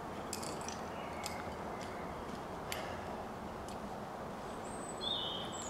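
Quiet outdoor air with a steady low hiss and a few faint, sharp, scattered ticks. Near the end, a short high-pitched bird call, one note sliding and then a held whistle.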